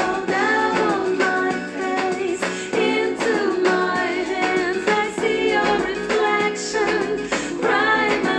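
A song with a woman singing over guitar accompaniment.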